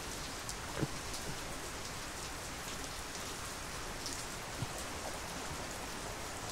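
Steady rain falling, an even hiss, with a few faint ticks of drops here and there.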